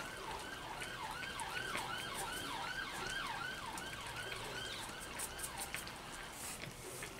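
An electronic siren sounding from a distance, a pitched tone that falls over and over, about two to three times a second, fading out near the end.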